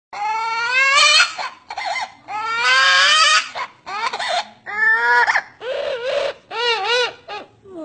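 A parrot mimicking a small child's crying: about eight wailing sobs. The first ones are long and rise in pitch, and the later ones are shorter and waver up and down.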